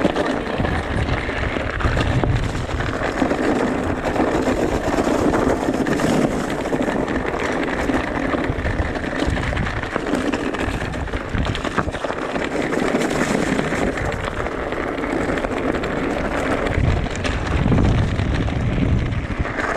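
Riding noise from an e-mountain bike on a rough trail: wind rushing over the microphone and tyres rumbling over the ground, with a few sharp clicks and rattles. The low buffeting swells about a second in and again near the end.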